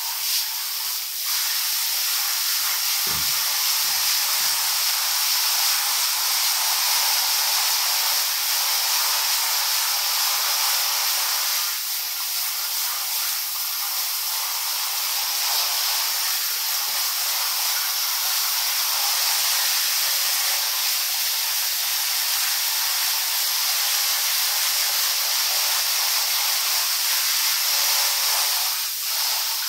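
Handheld shower head spraying a steady hiss of water onto a crocodilian's back and the tiled floor, with three soft low knocks about three to four and a half seconds in.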